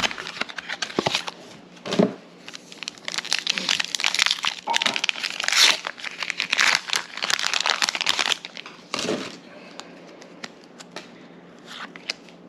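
Foil Pokémon booster pack wrapper being crinkled and torn open, a dense crackling that dies down about nine seconds in.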